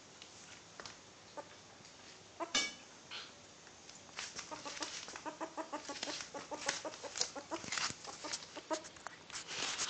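Six-week-old ferret kit dooking: quick runs of short, soft clucking chuckles, several a second, starting about four seconds in after a single sharp knock. Dooking is the ferret's sound of happy, excited play.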